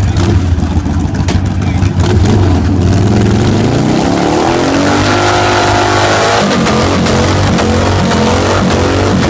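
A V-twin motorcycle engine runs lumpily at first. About two and a half seconds in it revs up hard and is held at high revs, with a brief dip past the middle, as the rear tire spins in a burnout.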